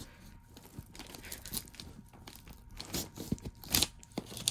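Package wrapping being torn and crinkled as it is worked open: irregular crackling and rustling, with louder crunches about three seconds in and again near four seconds.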